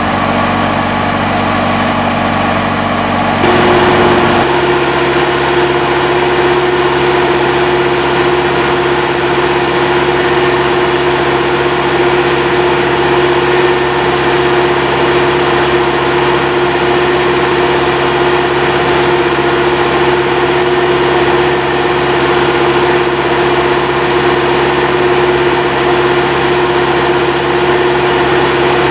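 Marsh Master MM-2's engine running steadily, powering the hydraulic anchor installer as it drives an anchor rod into the ground. About four seconds in, its note steps up to a higher steady pitch and gets slightly louder, then holds.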